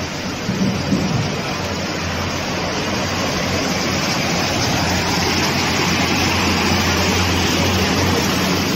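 A steady rush of flowing floodwater with a low engine hum underneath, slowly growing a little louder.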